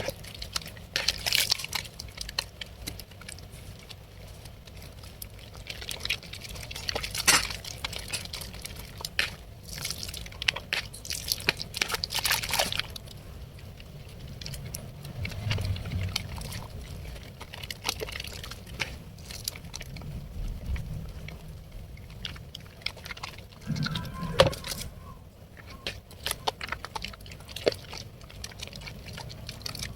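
Wet soap being lathered: irregular squishing and crackling of foam and water, with louder bursts of squelching now and then.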